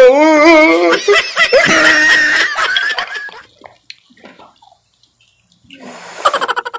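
Laughter, wavering up and down in pitch for the first few seconds, then a quiet pause, then a quick run of short pulses near the end.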